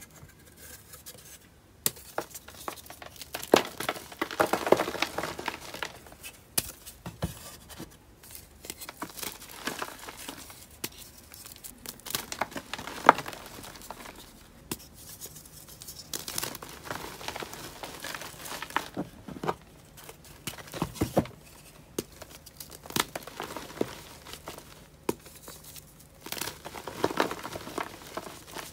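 A reformed gym chalk bubble slab being crushed by hand: dry crunching, with sharp snaps as pieces break off and a crumbling hiss as the chalk falls to powder.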